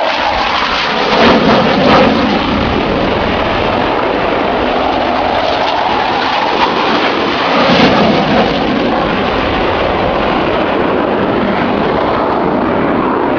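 Blue Angels F/A-18 Hornet jets flying past, a continuous loud jet roar that swells briefly about one and a half to two seconds in and again around eight seconds in.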